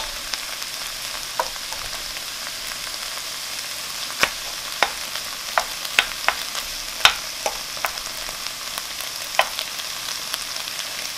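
Shrimp, onion and vegetables sizzling in a nonstick wok, stirred with a wooden spoon. A steady hiss with scattered sharp clicks as the spoon knocks the pan.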